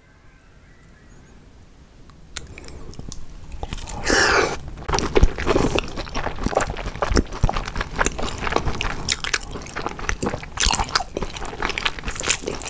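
Wet, sticky squelching of sauce-coated spicy instant noodles being stirred and lifted with chopsticks, with many short clicks. It starts about two seconds in and grows louder.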